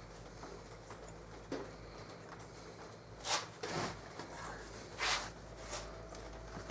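Scraping and rubbing as a metal straightedge and a circular saw are shifted on a plywood sheet to line up a cut, with two short swishes about three and five seconds in.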